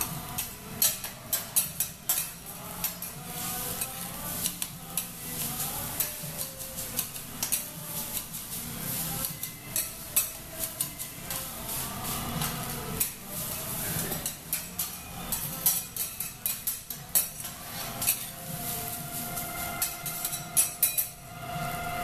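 Metal spatulas clacking and scraping against a steel teppanyaki griddle as rice is chopped and turned, many quick irregular knocks, with food sizzling on the hot plate underneath.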